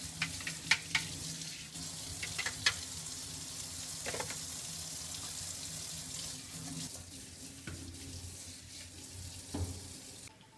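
Tap running into a sink while paint palettes are scrubbed with a brush under the stream, with scattered clatters and knocks as the palettes are handled.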